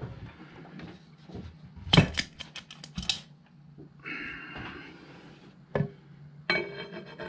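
Metal clinks and clanks from the lid and top hose fitting of a waste-oil centrifuge being handled as the lid is opened. The loudest is a quick cluster of sharp clinks about two seconds in, with a rough scraping rub in the middle and a ringing metallic scrape near the end, over a low steady hum.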